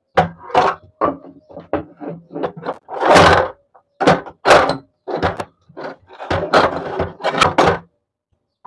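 Two-burner steel gas stove being set down and shifted into place on a stone slab: a string of knocks and clunks, with a longer, louder clatter about three seconds in.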